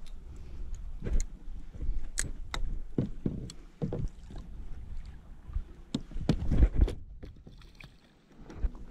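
Water and gear sounds on a fishing kayak at sea: irregular knocks and clicks against the hull over a low rumble of water and wind, with a louder cluster of knocks about six to seven seconds in.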